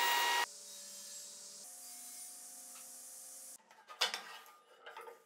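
A stationary woodworking machine with its dust hose runs steadily and cuts off abruptly about half a second in. A faint low hum follows. Around four and five seconds in come a few light knocks and scrapes of a wooden strip being set against the aluminium crosscut fence of a sliding-table saw.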